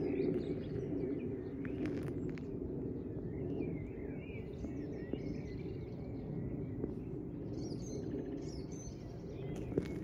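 Small songbirds chirping in short, curving calls, a higher burst near the end, over a steady low outdoor background rumble.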